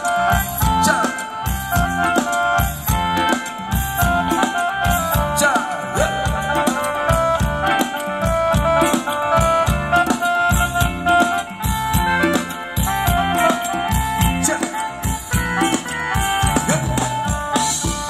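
Live band playing Thai ramwong dance music: a steady drum beat under a held melody line.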